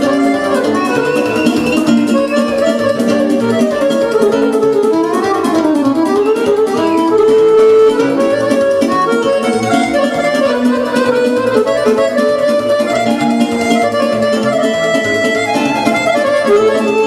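Music led by a Roland digital accordion playing a fast, ornamented melody full of quick runs.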